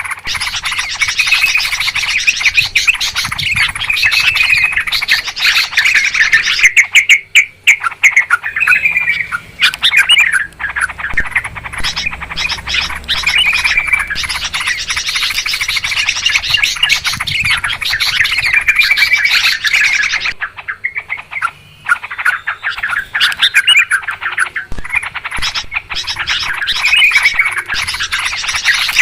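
Several yellow-vented bulbuls chattering in a busy, noisy chorus: quick bubbly chirps and calls overlapping almost without pause, with short breaks about seven and twenty seconds in.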